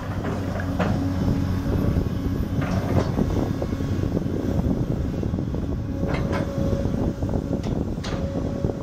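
Diesel engine of a Hyundai Robex 290LC-3 long-reach excavator running steadily under hydraulic load as the boom and arm are worked, with several short metallic clunks scattered through.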